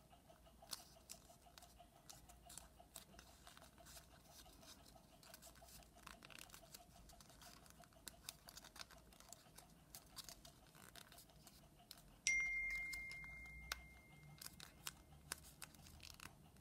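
Faint crinkling and rustling of origami paper being creased and folded by hand. About twelve seconds in comes a single high, clear ding that fades away over about two seconds.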